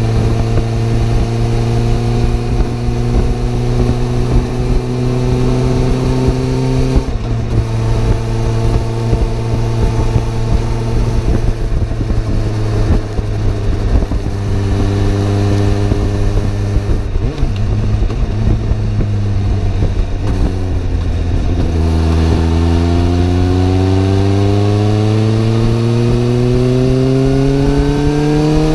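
Suzuki GSR750 motorcycle's inline-four engine under way, over wind and road rush. The engine note climbs gradually and steps down at a gear change about seven seconds in, then rises and falls with the throttle. From about twenty-two seconds it drops and then climbs steadily as the bike accelerates hard through a gear.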